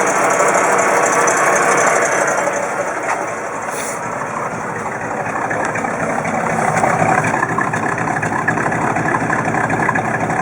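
1958 Chevrolet Bel Air's engine running, easing off slightly a few seconds in and picking up again, with an exhaust note the owner thinks may come from an exhaust leak.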